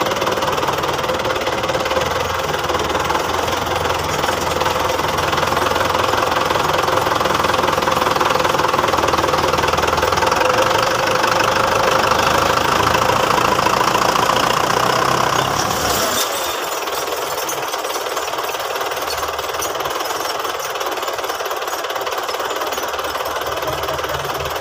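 Belarus tractor's diesel engine running steadily under load while its rear wheel spins in the mud, the tractor stuck. About two-thirds of the way through, the deep rumble drops out and the sound turns thinner and slightly quieter.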